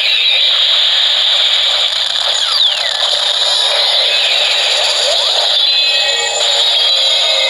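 Kamen Rider Decade K-Touch toy's electronic sound effects playing through its small built-in speaker: a loud, hissing, thin effect with no bass, with a falling sweep about two and a half seconds in and a rising sweep about five seconds in.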